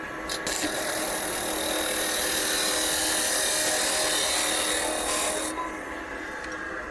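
Power tool with an abrasive cutting disc grinding through steel: a steady, harsh hiss with a motor whine under it. It cuts off about five and a half seconds in.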